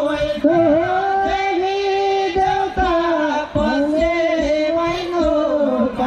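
Singing with music: a voice holding long, wavering notes over accompanying drum strokes.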